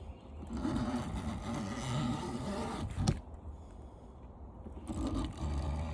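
Box-cutter blade scraping and cutting through the aluminium fins of an air-conditioner condenser coil, in two rough stretches with a sharp knock about three seconds in.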